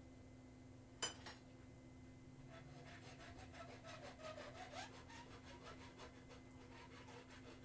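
Hand file working the forged leaf-spring steel of a small cut-off hardie: a run of faint, quick, even strokes starting about two and a half seconds in, after a single light knock about a second in.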